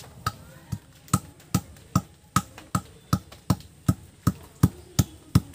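A heavy stone pestle (nora) pounding soaked turmeric root on a stone grinding slab (shil): a steady knock about two and a half times a second, crushing the roots before they are ground to paste.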